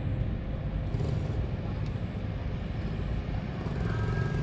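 Steady low outdoor rumble with no distinct events, and a few faint high thin tones near the end.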